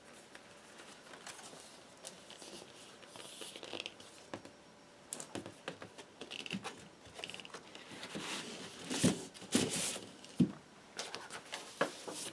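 A cardboard gatefold LP jacket and its paper inserts being handled: irregular rustling and sliding with sharp taps and knocks, loudest about nine to ten seconds in.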